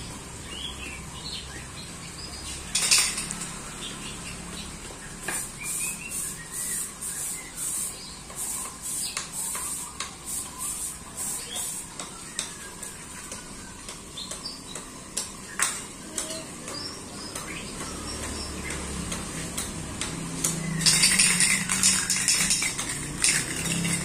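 Metal clinks and taps from the parts of a welded metal-tube bird perch being handled and fitted together: a sharp clank about three seconds in, a run of quick taps after it, and louder clattering near the end.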